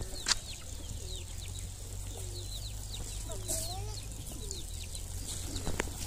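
Farmyard fowl calling: hens clucking in short, curving calls over many quick, high, falling chirps from other birds, with a sharp click just after the start.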